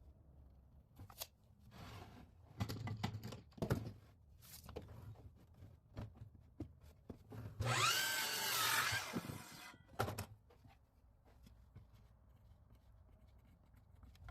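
Cut wooden boards being handled, with scattered knocks and clunks as pieces are set down. About halfway through, a loud burst of about two seconds whose pitch rises and falls.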